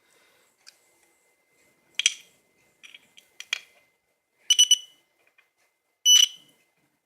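The buzzer of a simple electronic alarm circuit sounding in short, high-pitched bursts as it is set off and cut off again: four bursts, the third a quick triple chirp and the last a longer beep. A faint steady high whine runs underneath.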